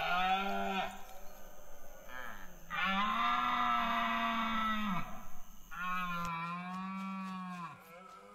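Rutting deer stags calling: three long, drawn-out calls, the middle one the longest, as the mating-season contest between males begins.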